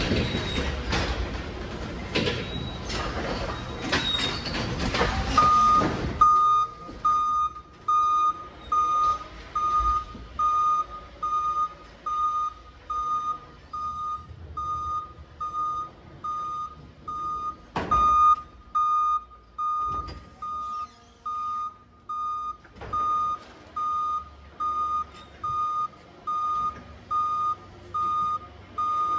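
Forklift reversing alarm beeping at a steady pace, about one and a half beeps a second, starting some six seconds in as the forklift backs up. Before it starts there is dense rattling and clunking, and a few sharp clunks sound over the beeping later on.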